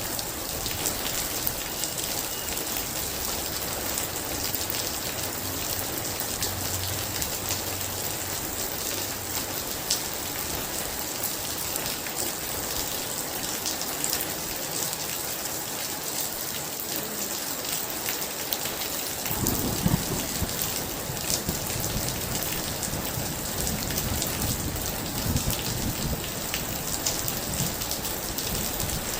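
Heavy rain pouring steadily, with many individual drops splashing. About two-thirds of the way through, a low rumble of thunder sets in and keeps rolling with swells.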